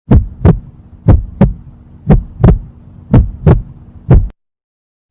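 Heartbeat sound effect: deep double thumps, lub-dub, about once a second, four beats in a row, stopping suddenly a little past four seconds in.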